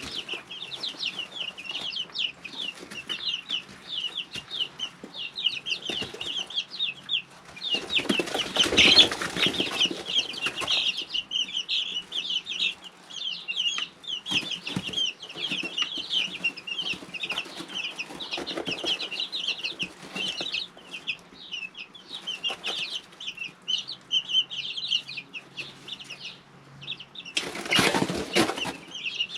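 A brood of three-week-old chicks peeping steadily, with two louder bursts of wing-flapping and scuffling, one lasting a few seconds about eight seconds in and a shorter one near the end.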